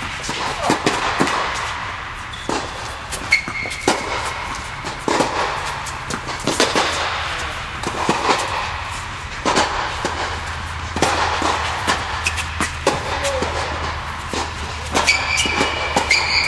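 Tennis balls being struck by racquets and bouncing on a hard court, sharp pops at irregular intervals that ring in a large indoor tennis dome over a steady hum. A few short high squeaks of court shoes come about three seconds in and again near the end.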